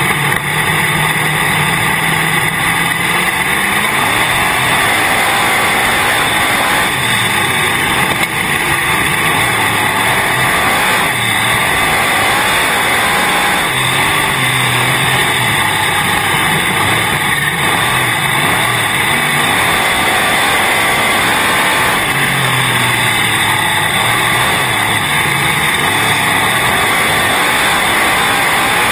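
Sprint car's V8 engine heard from inside the car, running loud and unbroken on a dirt oval, its pitch rising and falling every several seconds as the throttle comes on and off.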